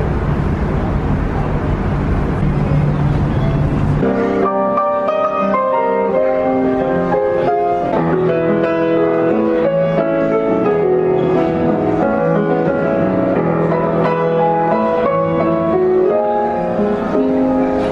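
A steady low hum and rushing noise on a ship's open deck, then, about four seconds in, a grand piano played live: a melodic piece of single notes and chords.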